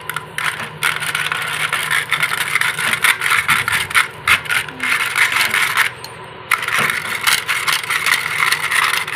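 Small hand-cranked beater turned fast in a steel bowl of watermelon chunks, its blades rattling and scraping against the metal as they chop the fruit. It stops briefly about six seconds in, then starts again.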